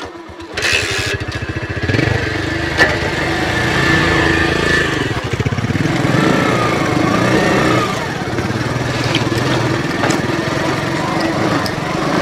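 Bajaj Boxer 100 motorcycle's small single-cylinder engine picking up from a low idle about half a second in and running steadily as it is ridden along.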